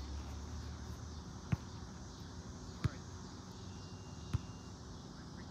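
Three sharp smacks of a volleyball being hit, about a second and a half apart, over a steady low hum of gym background noise.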